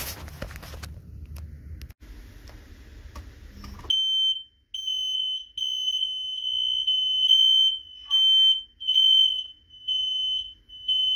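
A ceiling smoke alarm sounding its full alarm, set off by a tester pole's cup held over it: loud, high-pitched beeps repeating in short on-off pulses, starting about four seconds in. Before the alarm starts there is rustling and a few knocks of handling.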